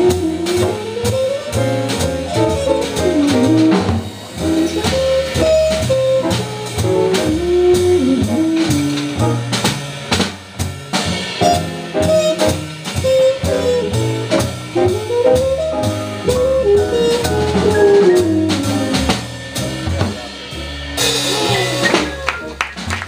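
Live swing jazz: a trumpet solos in a running, gliding line over upright bass and drum kit. Near the end a sudden wash of hissy noise rises over the band.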